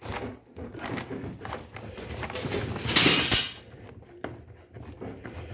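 Clicks and knocks of hand tools and metal parts being handled while the washing machine gearbox's large self-tapping mounting screws are unscrewed, with one louder scraping clatter about three seconds in.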